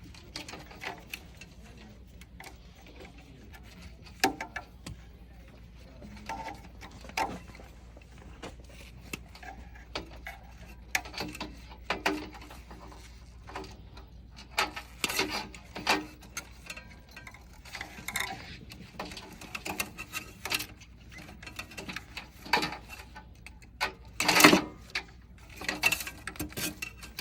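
Wire cutters snipping through the wires on an old central vacuum PC board, with irregular sharp clicks and handling rattles; the loudest burst comes near the end.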